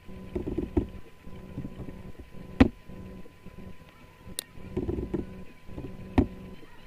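Computer mouse clicks and keyboard key taps picked up by a desk microphone: a few separate sharp clicks, the loudest about two and a half and six seconds in, with soft low knocks between, over a faint steady electrical hum.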